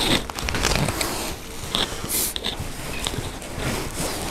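Footsteps crunching over debris and litter on a floor, a scatter of irregular small clicks and crackles.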